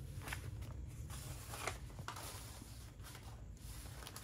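A few faint, brief rustles and taps of paper and plastic being handled: a printed sheet set aside and a plastic-wrapped roll touched, over a low steady hum.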